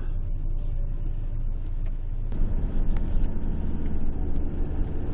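Delivery van's engine and road noise heard from inside the cab, a steady low rumble that grows louder about two seconds in as the van moves off, with a single click at that moment.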